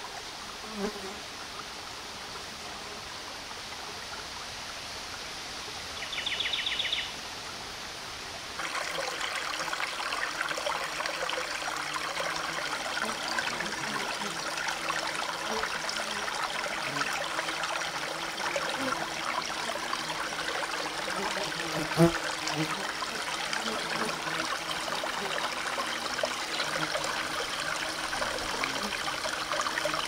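Forest stream running steadily. About eight seconds in, the water becomes louder and more bubbling. A short, rapid buzzing trill comes just before the change, and there is a single brief knock about two-thirds of the way through.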